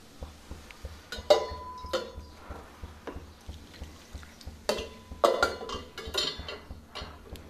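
Wire whisk stirring dal-flour batter in a glass bowl, clinking and knocking against the glass at irregular moments, some strikes ringing briefly.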